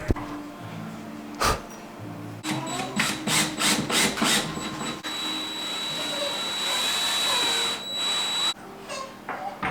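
A quick run of sharp knocks, then a power drill running steadily with a thin high whine for about three and a half seconds before stopping suddenly, driving fixings for a wall shelf.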